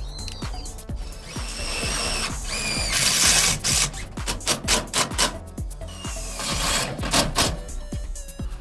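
Background music with a steady beat, mixed with work noises: sharp knocks and clicks and bursts of power-tool noise.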